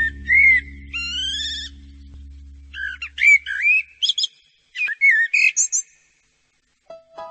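Bird-like whistled calls in short phrases with rising and falling glides and a brief trill, over a low hum that fades out about four seconds in. A plucked melody starts near the end.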